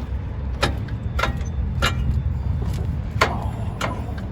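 Hammer tapping a strut bolt into the lower control arm mount, five sharp metallic knocks about half a second apart with a short pause in the middle, over a steady low rumble.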